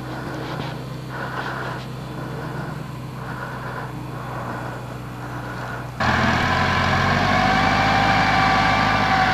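Schiltrac alpine transporter's engine running steadily, faint at first; about six seconds in it turns suddenly much louder and closer, a steady drone at an even pitch.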